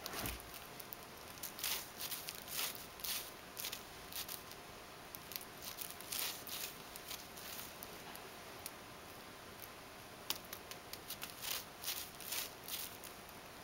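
Short, light rustles and ticks in irregular clusters, a few a second at times, from a plastic drinking straw being waved and flicked about in front of a cat.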